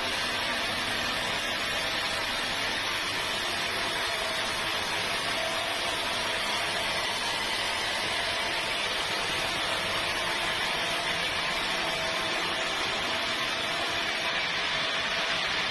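Steady machine noise, an even hiss with a faint hum under it, running without change; most likely sawmill machinery.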